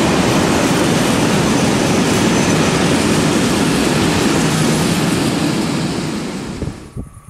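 Freight train of covered grain hopper wagons rolling past at close range, a loud steady rumble of wheels on rail. It fades about six seconds in and drops away sharply near the end.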